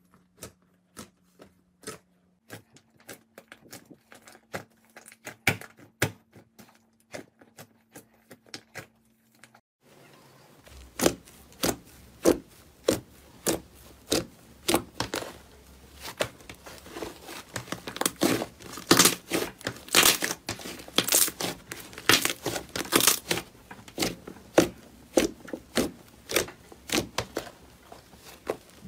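Hands squishing and stretching slime: scattered soft sticky clicks and pops at first. From about ten seconds in, louder and denser crackling and tearing as a thick slime is pulled apart.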